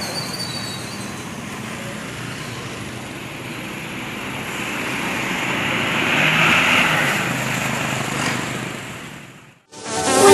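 Roadside traffic noise, with a vehicle passing and getting louder about six to seven seconds in. The sound cuts off abruptly about nine and a half seconds in, and electronic dance music starts at the very end.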